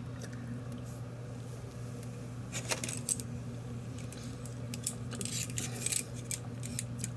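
Scattered light metallic clicks and clinks from kitchen tongs with red silicone tips being picked up and handled, starting a couple of seconds in, over a steady low hum.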